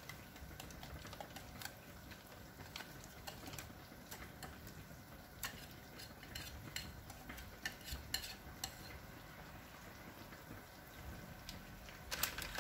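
Faint scattered clinks and scraping of a utensil against a glass mixing bowl as thick cake batter is poured out into a paper-lined baking dish, with a few louder clinks near the end.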